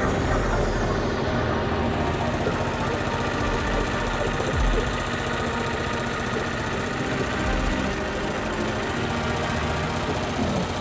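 Embroidery machine running at stitching speed, its needle going up and down in a fast, steady rhythm.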